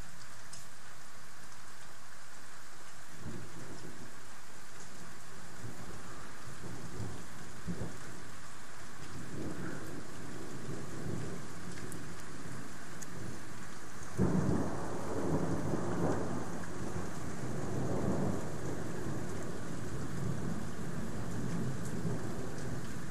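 Thunderstorm: steady rain with rolling thunder. Low rumbles start a few seconds in and build, then a sudden loud clap about fourteen seconds in rolls on for several seconds.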